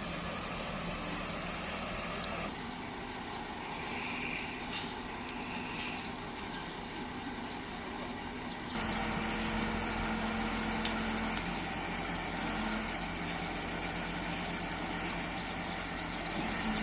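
Heavy construction machinery running with a steady engine drone. The sound changes abruptly about two and a half seconds in, and again a little before nine seconds, when it gets somewhat louder.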